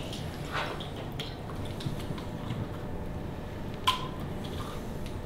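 Handling of a plastic syringe of harvested fat over a plastic cup: soft squishing and small clicks, with one sharp clink about four seconds in.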